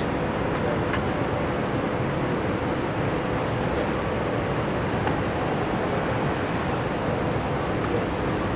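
City street traffic: cars passing at low speed over a steady wash of road noise, with a faint steady hum underneath.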